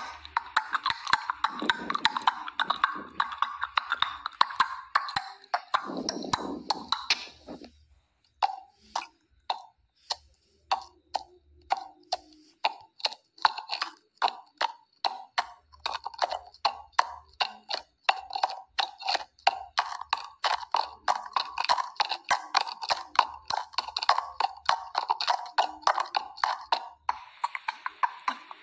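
Horse hoofbeats: a long run of clip-clopping knocks, thinning to a few spaced knocks for several seconds about a third of the way in, then quick and dense again, over a hissing noise.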